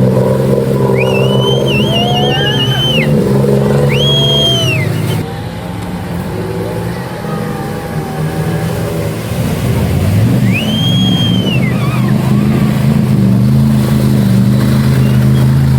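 Off-road vehicle engine running steadily, easing off for a few seconds midway and then picking up again. High whistle-like tones rise and fall three times above it, one of them warbling.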